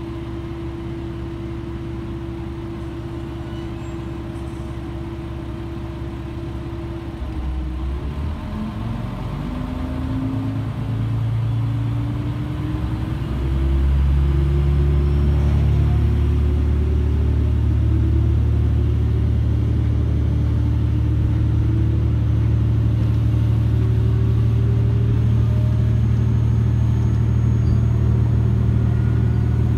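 Diesel railcar engine heard from inside the carriage: idling steadily, then throttling up about seven seconds in, pitch rising as the train pulls away, and settling into a loud, steady low drone under power from about halfway through.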